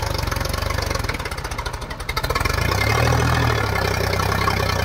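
Sonalika DI 740 III tractor's diesel engine pulling a loaded trolley through mud. About a second in it drops to a slow, even chugging, then picks up and runs louder again from about two and a half seconds in.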